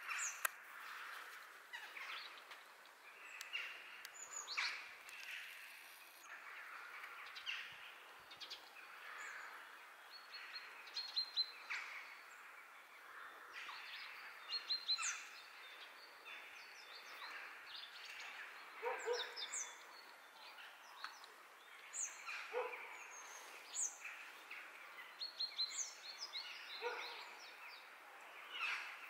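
Small birds chirping outdoors: many short chirps and quick falling twitters throughout. A few lower, stronger calls come at intervals in the second half.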